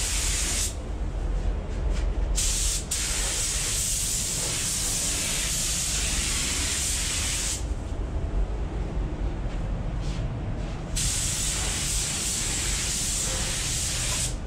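Pneumatic paint spray gun hissing in passes as the trigger is pulled and released: a short spray at the start, a long pass from about three seconds in to past seven, a pause, then spraying again from about eleven seconds in. A steady low rumble of the paint booth's air handling runs underneath.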